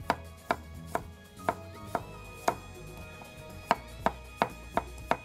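Chef's knife slicing garlic cloves thinly on a wooden cutting board: each cut ends in a sharp knock of the blade on the board, about two a second, with a short pause around the middle.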